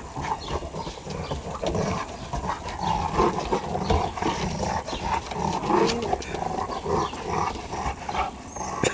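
A chocolate Labrador puppy and a Golden Retriever play-growling steadily as they tug at a toy between their teeth, with claws tapping and scrabbling on wooden deck boards.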